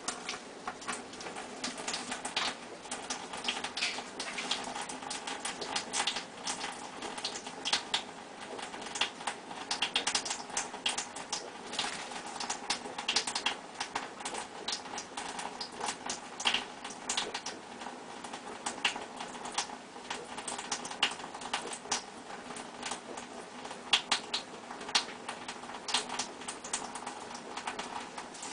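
Dishes knocking lightly together in a sink: rapid, irregular small clicks and taps, several a second, over a faint steady background hum.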